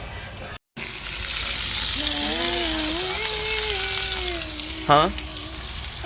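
Food sizzling steadily on a hot grill, with a person's drawn-out voice over it and a short, loud 'huh?' near the end.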